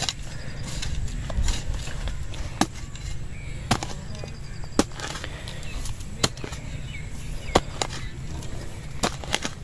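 A digging hoe's metal blade chopping into dry soil again and again while a pit is dug by hand: sharp strikes about every one to one and a half seconds, with two close together near the end.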